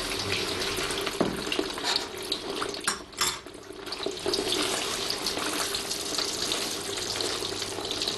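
Sliced lamb sizzling and crackling in a wok of hot oil. The meat is being passed through moderately hot oil that is just showing small bubbles.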